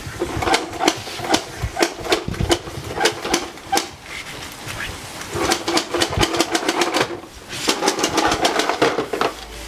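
Hand scrubbing of wet teak wood while teak brightener is worked in. It comes in runs of quick back-and-forth strokes, about three or four a second, with short breaks.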